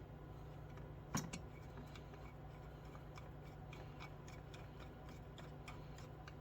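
Faint, irregular metallic ticks and clicks of a screwdriver and small parts as screws are run down into a carburetor during reassembly, with one louder knock about a second in. A steady low hum sits underneath.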